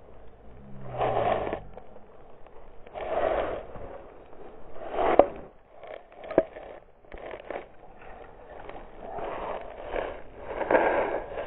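Rough scraping and rustling in bursts every couple of seconds as a helmet or chest-mounted action camera tumbles with the rider in a mountain bike crash, with two sharp knocks about five and six and a half seconds in.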